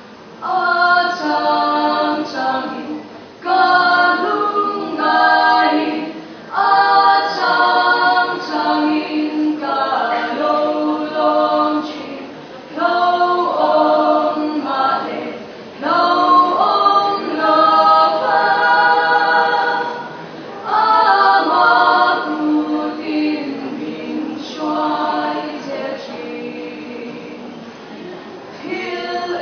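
Female vocal quartet singing a cappella in close harmony. The singing comes in phrases a few seconds long, with brief breaks for breath between them.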